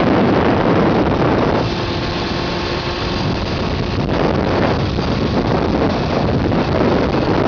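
Wind rushing over the microphone of a moving Honda CBR600F4i motorcycle, with the steady hum of its inline-four engine faintly underneath. The wind eases slightly about a second and a half in.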